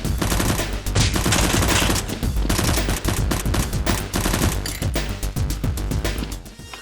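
Rapid, sustained gunfire over background music, with the shooting dying away near the end.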